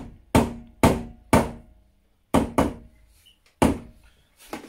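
Hand blender knocked against the rim of a glass Pyrex jug to shake off the blended pâté: a series of sharp knocks with a short ring, three about half a second apart, then a few more spaced out after a pause.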